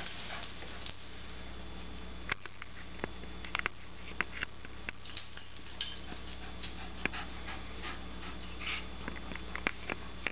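A dog panting and moving about, with scattered short clicks and taps.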